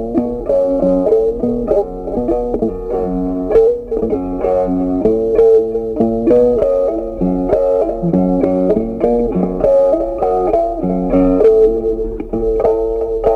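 Background music: a plucked guitar tune with a steady run of notes.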